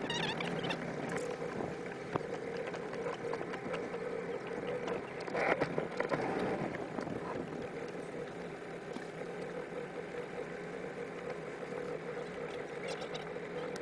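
Mercury Black Max 175 hp V6 two-stroke outboard running steadily at low, near-idle speed, with water washing along the hull. A brief louder rush of water noise comes about five and a half seconds in.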